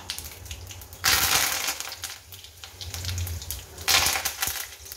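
Fresh curry leaves hitting hot oil and mustard and cumin seeds in a steel kadhai during tempering: a loud burst of sizzling and spitting about a second in that dies down, small crackling pops, then a second short burst of sizzling near the end.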